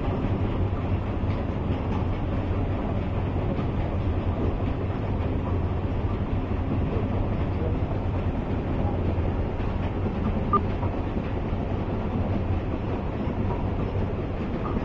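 Screw-type oil expeller running steadily under load, pressing mustard seed: a continuous low hum with a dense mechanical rumble.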